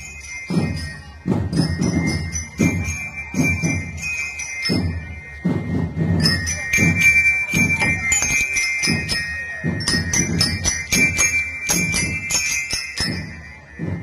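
Marching drum band playing: bass drums beat a steady march, about one stroke every two-thirds of a second, under a bright ringing melody on bell lyres (marching glockenspiels).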